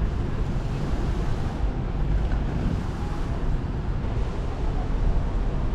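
Wind rumbling on the microphone over a steady outdoor hiss.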